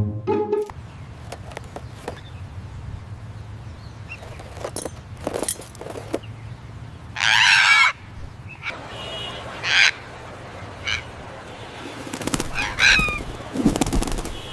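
Parrot squawking in several short, harsh calls, the longest and loudest about seven seconds in, over a steady low hum.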